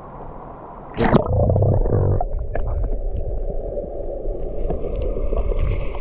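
A splash about a second in as the camera plunges into the river, then the muffled rumble and gurgle of moving water and bubbles heard underwater, with scattered small clicks and knocks.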